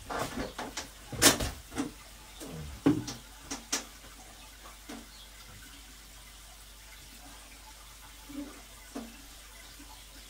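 Several sharp knocks and clatters in the first few seconds, then water running faintly and steadily through a hose into the fish tank as it is topped up.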